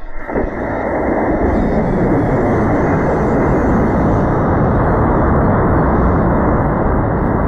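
High-power model rocket motor (H160 Skidmark) firing at liftoff: a loud, steady rushing roar that starts a fraction of a second in and holds at an even level.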